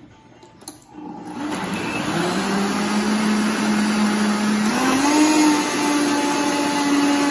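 Vitamix blender starting about a second in and running up to speed, blending a thick mango shake of milk and ice cream. Its motor note steps up in pitch about five seconds in, as the speed is turned up.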